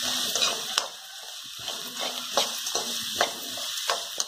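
Onions and green chillies sizzling in hot oil in a kadai, stirred with a wooden spatula that knocks and scrapes against the pan a few times.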